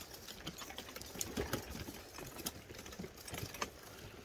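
Irregular rattling and clicking of gear being hauled along a trail, with footsteps.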